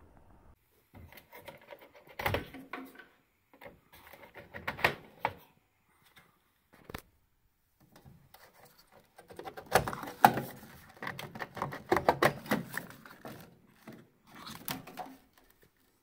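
Handling noise on the boiler's red sheet-metal burner casing: several short groups of clicks, taps and rubbing, with pauses between, as a hand feels along the housing and its bracket.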